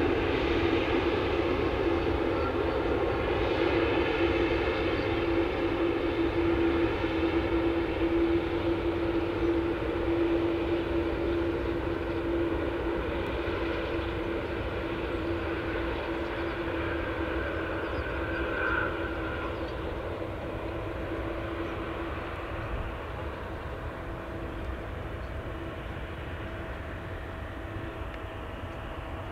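Boeing 787-9 airliner's GEnx-1B jet engines running at low power during the rollout after landing, a steady whine with a strong single tone that fades gradually as the aircraft moves away.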